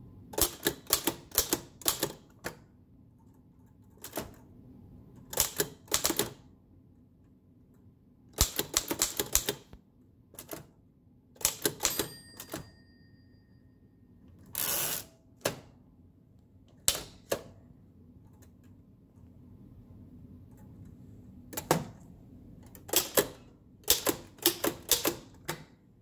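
Oliver No. 5 typewriter typing in irregular runs of keystrokes, its downstrike typebars snapping onto the platen. About twelve seconds in, the margin bell rings once. Soon after comes a longer sweep, typical of the carriage being returned, before the typing resumes.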